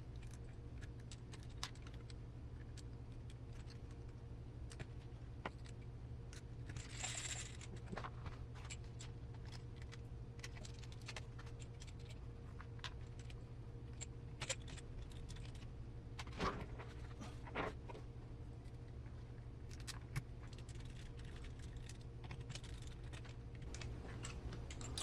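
Scattered small clicks and light rattles of plastic parts and wires being handled as RC servo and ESC cables are pressed into plastic cable retainers, over a steady low hum.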